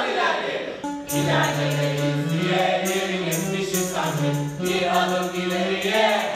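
A stage cast singing a song together in chorus, with a rhythmic jingling percussion beat. About a second in, the singing starts after a short burst of many voices.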